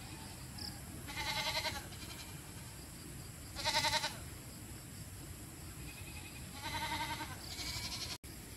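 Goats bleating: four quavering bleats, the last two close together near the end.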